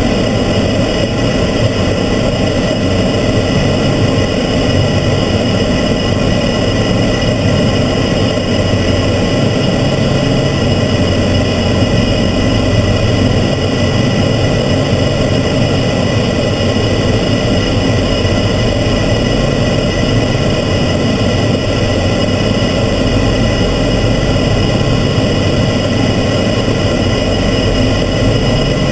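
Transall C-160's two Rolls-Royce Tyne turboprop engines running steadily in cruise, heard inside the cockpit: a constant loud low drone with several steady whining tones over it.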